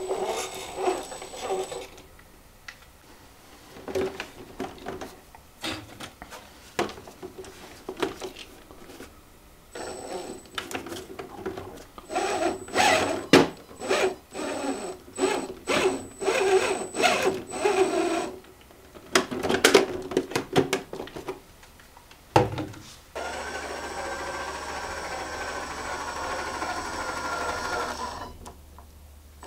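Small electric motor and gear drivetrain of an Axial SCX10 II RC crawler whirring in short throttle bursts with its wheels spinning off the ground, with clicks and knocks in between and a steady high whine during the bursts. Near the end a steadier running sound holds for several seconds.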